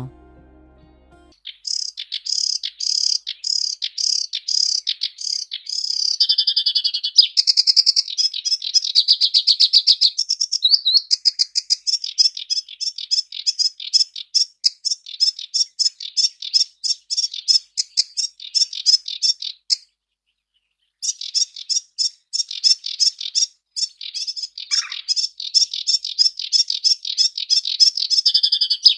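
Sedge warbler singing: long runs of rapid repeated notes whose pattern keeps changing from phrase to phrase, broken by a short pause about two-thirds of the way through.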